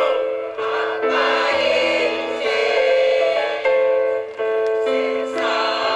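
Mixed choir of men and women singing together in long held notes over an instrumental accompaniment with a slow-moving bass line.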